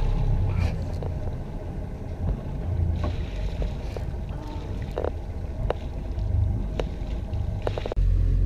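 Low wind rumble on the microphone and water washing along the hull of a sailboat under way, with a few small clicks scattered through.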